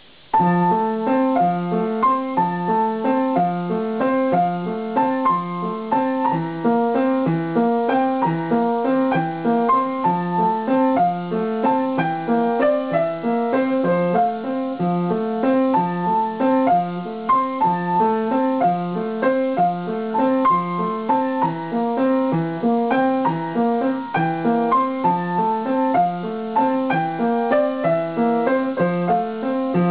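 Piano played by a child: a steady run of notes with a regularly repeating bass figure under a higher melody, beginning just after the start.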